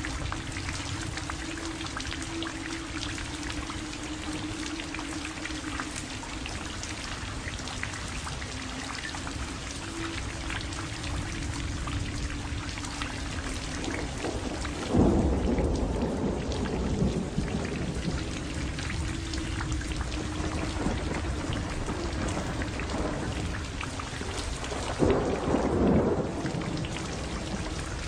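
Steady rain with a faint held low tone beneath it, and two rolls of thunder, one about halfway through and one near the end.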